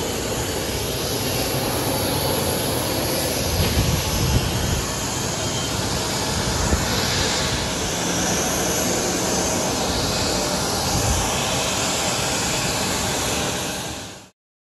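Steady noise of jet airliners on an airport ramp, cutting off suddenly near the end.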